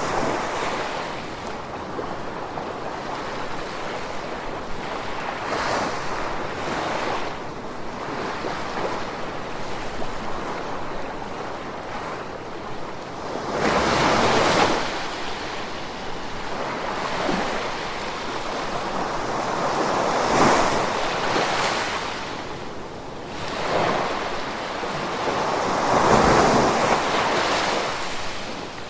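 Gentle ocean waves washing onto a shore over a steady hiss, a wave swelling and falling back roughly every six seconds, the strongest about halfway through and near the end.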